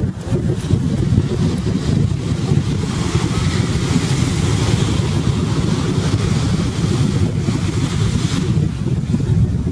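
Waves breaking and washing up on a sandy shore, a steady hiss, under a heavy rumble of wind on the microphone.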